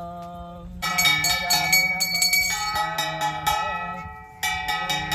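A ritual hand bell rung rapidly and continuously, starting about a second in and struck afresh near the end. Under it, voices keep chanting, after a chanted note held at the start.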